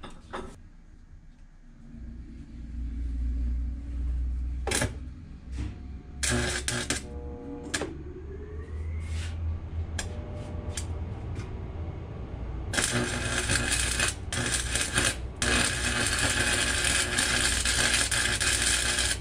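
Stick (arc) welding on a steel porthole frame: a few short crackles as the arc is struck, then a steady crackling of the running arc through the last third, over a low hum.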